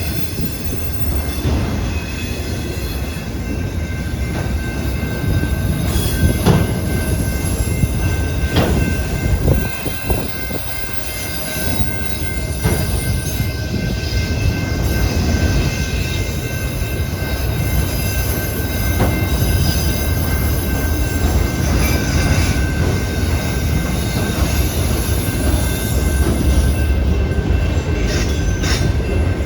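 CPKC train rolling past: a steady low rumble of wheels on rail, with a thin, continuous high wheel squeal and a few sharp clicks from rail joints.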